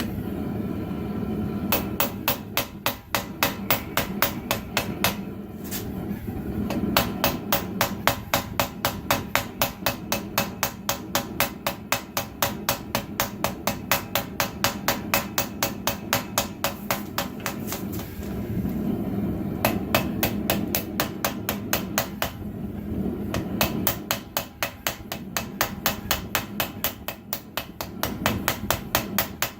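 Hand hammer striking steel on an anvil in long runs of quick, even blows, about four a second, with a few short pauses between runs. A steady low rush runs underneath.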